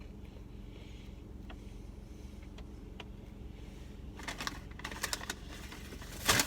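Close-up chewing of a crispy breaded fried chicken sandwich: scattered crunchy clicks, getting busier about four seconds in and loudest just before the end, over a steady low hum.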